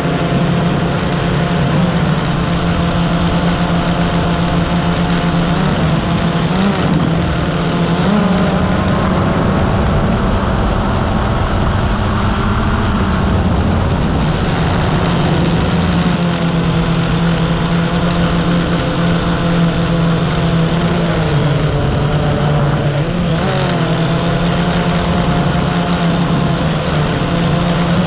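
Drone's electric motors and propellers buzzing steadily in flight, heard up close from its onboard camera; the pitch slides up and down every few seconds as the motors change speed to manoeuvre.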